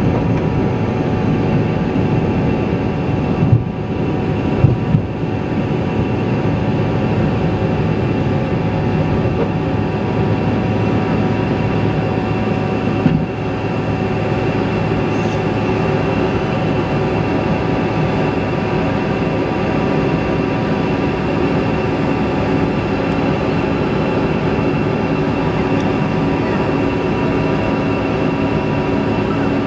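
Cabin noise of a Bombardier CRJ regional jet's rear-mounted turbofans at takeoff thrust during liftoff and the initial climb: a loud, steady rush with several whining tones. A few brief knocks come around four and five seconds in, and one more about thirteen seconds in.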